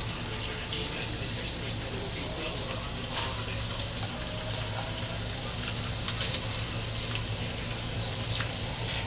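Sliced meat sizzling in a frying pan: a steady hiss with a few sharp pops and taps, as green beans and carrot strips are added. A low steady hum runs underneath.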